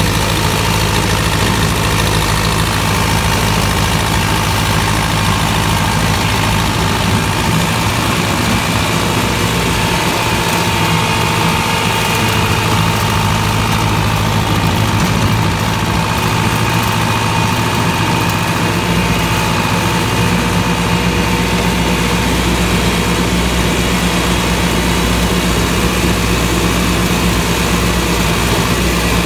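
John Deere tractor engine running steadily under load while chopping cornstalks, with a steady whine above the engine's drone. A deeper low hum comes in about two-thirds of the way through.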